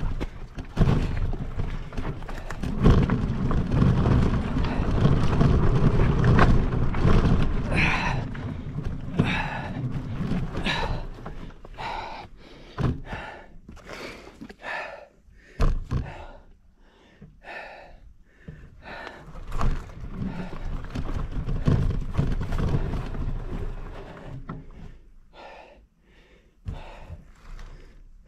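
Wind rumbling on the microphone with thunks of the mountain bike jolting over the trail, then from about eight seconds in a rider breathing hard, about one breath a second, fading toward the end.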